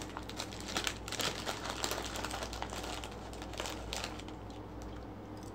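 Taffel sour cream potato chips and their bag crinkling and crunching up close as the chips are eaten: a steady run of small crackles that thins out near the end.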